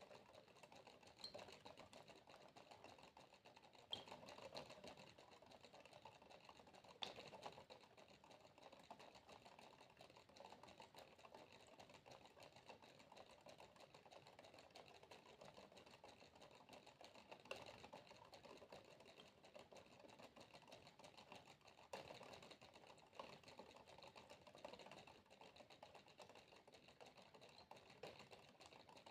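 Faint, steady patter of water droplets: a dense run of small ticks, with a few sharper drips standing out now and then.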